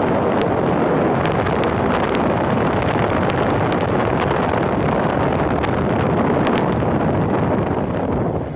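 Steady, loud wind rushing over a phone microphone on the deck of a moving boat, with a few light crackles.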